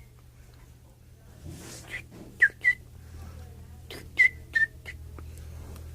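A person whistling short, sharp notes, mostly in pairs: three pairs a second or two apart.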